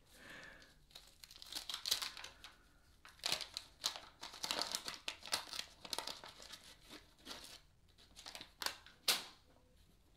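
Waxed-paper wrapper of a 1981-82 Topps basketball card pack crinkling and tearing as it is pulled open by hand: irregular crackles starting about a second and a half in.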